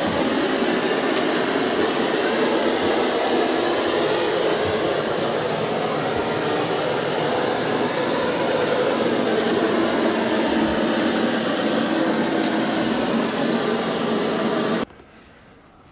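Loud, steady rushing noise that cuts off suddenly near the end.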